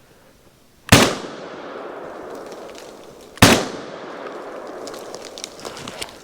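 Two shots from a 12-gauge Browning Maxus 2 semi-automatic shotgun, about two and a half seconds apart, each followed by a long echo rolling away.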